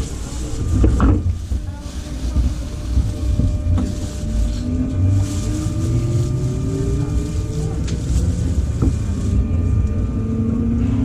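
Electric local train heard from inside the passenger car, picking up speed: a motor whine rises steadily in pitch over the low rumble of wheels on rails, then starts a second rise near the end. A single knock sounds about a second in.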